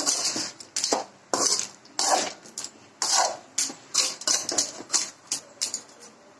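A steel spoon scraping and stirring shell-on clams in an aluminium kadai. It makes a quick, irregular run of short scrapes and clinks, about three a second, which stop near the end.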